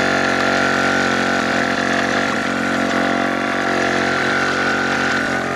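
Small engine of a homemade halftrack model running steadily at an even speed, turning the drive sprocket of the track.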